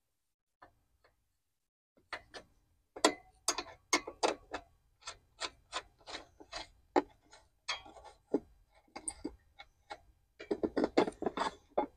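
Irregular metal clicks and taps of a hand wrench working the bolts at the top front of a John Deere 5050E tractor engine, about one or two a second. They start about two seconds in and come faster near the end.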